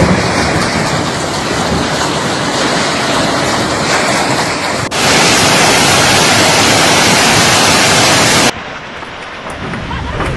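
Heavy hail and rain pelting down in a violent storm, a dense, steady roar. It switches abruptly about halfway through to a louder, hissier downpour, then drops back to a quieter, duller one near the end.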